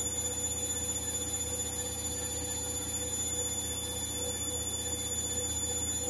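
Hoover H-Wash & Dry washer-dryer in its spin cycle, the drum spinning at a steady speed: an even motor whine with high-pitched tones over a low hum.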